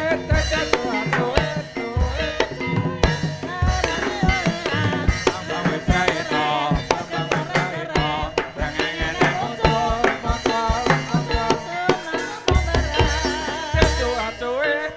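Javanese gamelan music accompanying an ebeg horse dance: drums beat a repeated pattern under layers of sustained, ringing pitched tones, some of them wavering.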